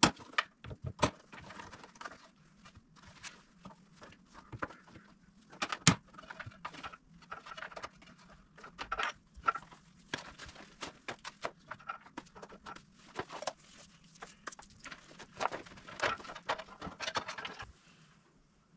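Hand tools and small metal hardware clinking, tapping and scraping in an irregular string, with a few sharper knocks, the loudest about six seconds in; the clatter stops shortly before the end.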